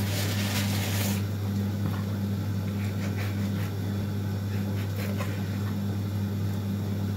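A kitchen knife cutting raw trotters on a wooden chopping board: a brief rustle in the first second, then a few faint taps of the blade on the board. A steady low hum runs under it throughout.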